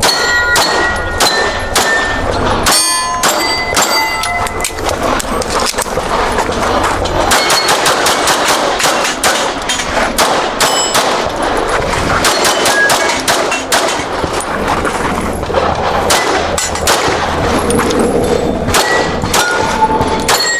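Pistol shots fired in quick strings throughout, with steel targets ringing out after hits.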